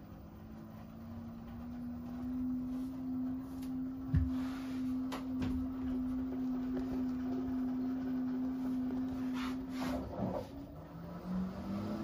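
Front-loading washing machine tumbling its load in the first rinse, not the spin: the drum motor's steady hum rises slightly in pitch over the first two seconds, holds, then stops about ten seconds in, and starts again with a rising hum near the end. A thump about four seconds in and some swishing from the wet load in the drum.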